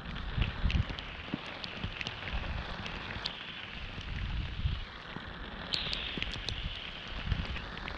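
Heavy rain hissing steadily on the water and the boat, with scattered sharp ticks of drops striking close to the microphone and irregular low rumbling thumps.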